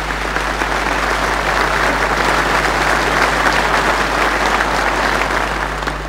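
Large audience applauding, swelling to a peak about halfway through and dying away near the end, with a steady low hum underneath.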